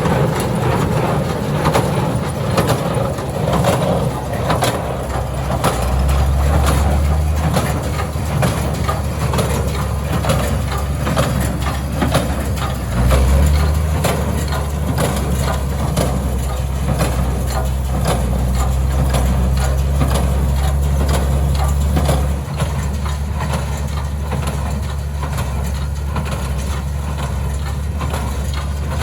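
Tractor engine running under load while a New Holland 316 Sperry square baler picks up and compresses hay, with a steady run of knocks and crunches from the baler over the engine. The engine note shifts a few times.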